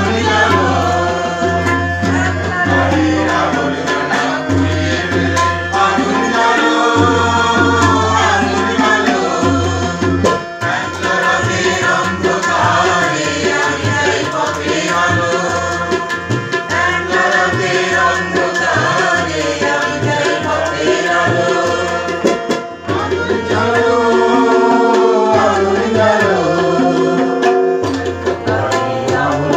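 Harmonium and tabla accompanying singing. The harmonium's reeds hold steady notes and chords, the tabla keeps up a run of drum strokes, and a voice sings over them.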